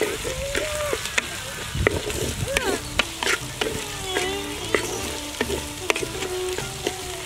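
Shallots sizzling in hot oil in a clay pot, stirred with a wooden spatula that scrapes and knocks against the pot in many short clicks. Chirping calls sound in the background.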